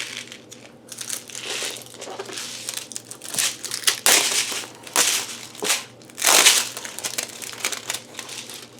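Plastic packaging crinkling and rustling as it is handled, in uneven bursts, loudest about four and six and a half seconds in.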